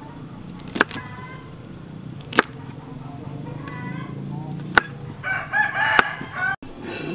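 A knife chopping through a bundle of yardlong beans onto a plastic cutting board, four sharp chops a second or more apart. A rooster crows in the background in the last couple of seconds.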